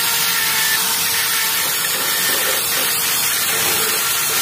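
Electric drill running at a steady speed, its spinning attachment scrubbing rust off the car's steel body panel with a loud, even hiss over the motor's hum.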